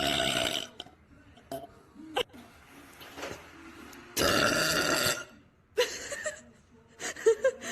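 A girl burping several times: a burp trailing off in the first second, a long loud one about four seconds in, then shorter burps near the end.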